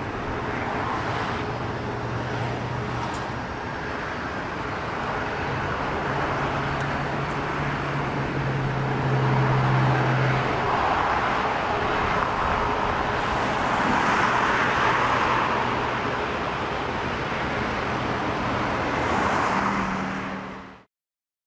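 Airbus A380 jet engines on final approach and landing: a steady rushing roar that swells as the four-engine jet passes close, mixed with road traffic noise. The sound cuts off suddenly near the end.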